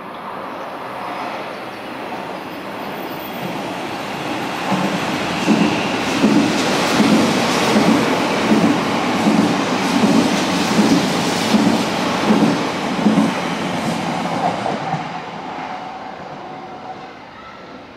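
Odakyu 50000 Series VSE Romancecar limited express running through a station without stopping: the sound builds as it nears, then a steady run of rhythmic wheel clacks over the rail joints, about three every two seconds, before it fades away.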